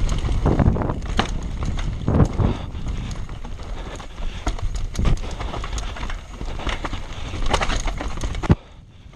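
Canyon Sender downhill mountain bike ridden fast over a rough dirt trail: steady rumble of tyres and wind on the microphone, with frequent sharp knocks and rattles from the bike over roots and bumps. A hard knock comes about eight and a half seconds in, after which the noise drops sharply.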